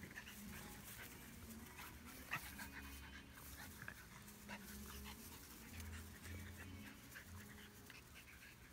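Two Boston terriers play-fighting, heard faintly: dog panting and scuffling, with one sharp knock about two and a half seconds in.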